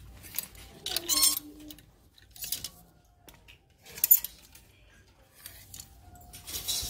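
Clear plastic clothes hangers pushed along a metal clothing rack, clacking and scraping in about six short bursts as garments are slid aside one after another, the loudest about a second in and about four seconds in.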